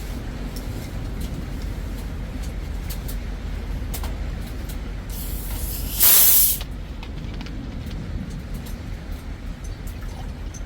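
A steady low rumble with a few light clicks, broken about six seconds in by a loud hiss, like spray or escaping gas, lasting about a second.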